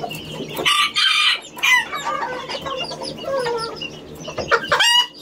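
Chickens calling in their cages: roosters crowing and hens clucking over one another, with a loud call about a second in and another near the end.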